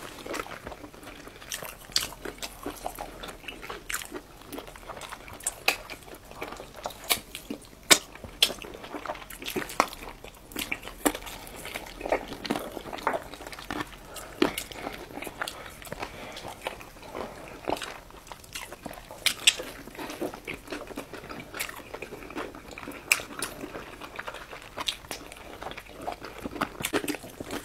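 People eating whole roast chicken: biting and chewing, with irregular sharp crunches as they bite into and tear at the meat and skin.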